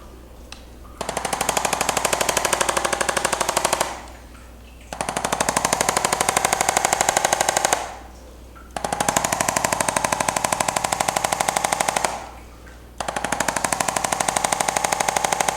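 Handheld electric percussion massager running in four bursts of about three seconds each, with a short pause between them. Each burst is a fast, even hammering with a steady motor whine.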